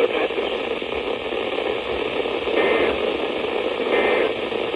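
Steady static hiss with a light crackle from a weather radio receiver tuned to NOAA Weather Radio station KEC92.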